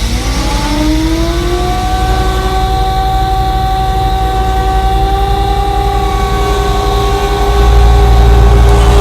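Outdoor tornado warning siren winding up: its wail rises in pitch over the first couple of seconds, then holds a steady tone. A heavy low rumble runs underneath and grows louder near the end.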